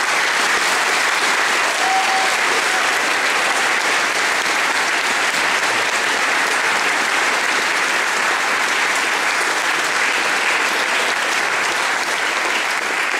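Audience applauding: a long, dense round of clapping at a steady level that eases slightly near the end.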